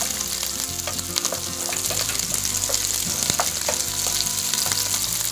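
Chopped onion, green chilli, garlic and ginger sizzling in hot oil in a frying pan, with a spatula stirring and knocking against the pan in scattered clicks.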